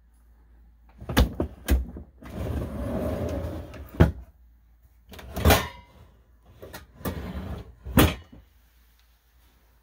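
Wooden pull-out drawers in oak base cabinets rolling out and in on their rollers, a rumbling slide broken by several sharp knocks as they hit their stops and close. The loudest knocks come about four and eight seconds in.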